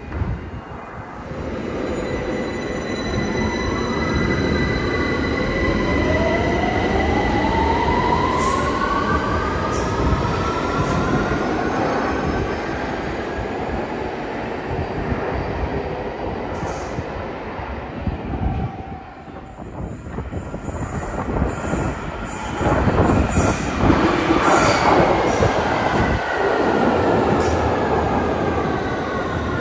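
London Underground 2009 Tube Stock trains. One pulls out with its traction-motor whine rising in pitch as it speeds away. After a lull about 19 s in, the next train runs in with louder rumble and a whine falling in pitch as it brakes into the platform.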